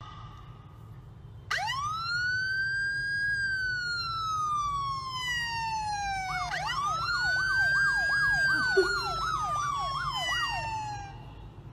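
Emergency-vehicle siren starting about a second and a half in: a long wail that rises quickly and falls slowly, then a second wail with a fast yelping warble over it.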